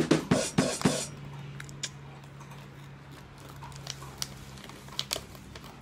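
Plastic snack bag crinkling and rustling as it is worked open by hand. There is a burst of loud crinkles in the first second, then scattered small clicks and rustles.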